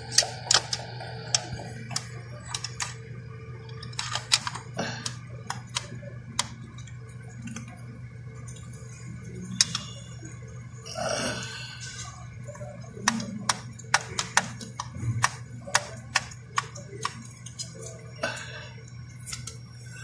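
Scattered sharp clicks and light knocks of a plastic internal mode switch and its metal detent lever being handled and fitted onto an aluminium automatic-transmission case, over a steady low hum.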